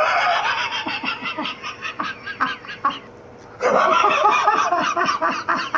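Two men laughing hard in quick pulses, breaking off for a moment about three seconds in before a second fit of laughter.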